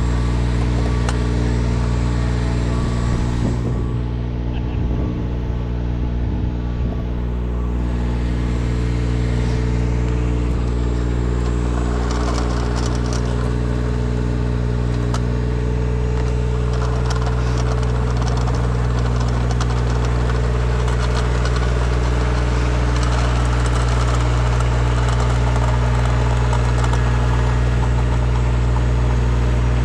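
Engine running at a steady idle, a constant low hum. A rushing hiss joins in about twelve seconds in and keeps on.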